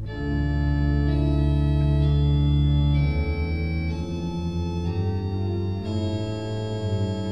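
Background music: slow, sustained organ chords, each held for a second or two before moving to the next.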